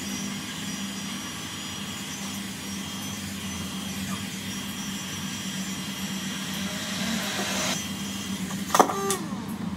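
Handheld hot air gun blowing steadily, with a constant fan hum. A single sharp click comes near the end.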